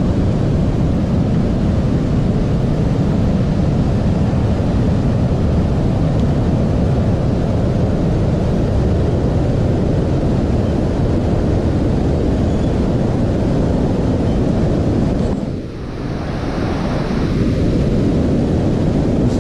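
Steady rush of a whitewater river's rapids, with wind buffeting the microphone and adding a low rumble. The rumble briefly drops about three-quarters of the way through.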